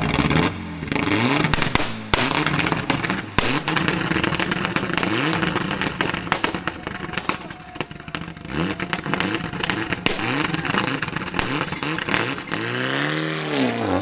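Mitsubishi Lancer Evo VI Group A rally car's turbocharged four-cylinder engine being blipped in short revs again and again, with many sharp exhaust bangs and crackles between them. Near the end it revs up and falls back once more as the car moves off.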